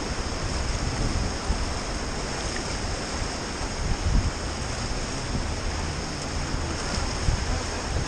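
Whitewater river rapids rushing and splashing around an inflatable raft, a steady noise, with a brief low thump about four seconds in.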